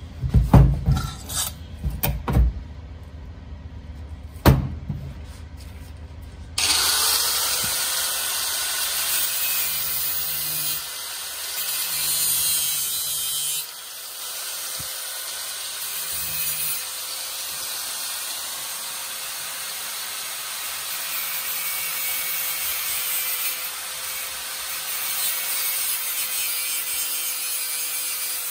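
A few sharp knocks as a scooter crankcase is handled on a steel bench, then an angle grinder with a thin disc starts suddenly about a quarter of the way in and runs steadily, its sound rising and falling in loudness as the disc works against metal.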